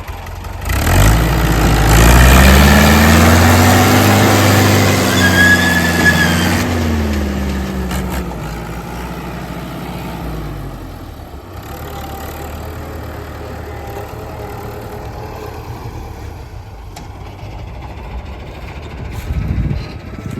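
Fiat 640 tractor's four-cylinder diesel engine revved hard about a second in, its pitch rising and then falling away over several seconds before settling to a steady idle.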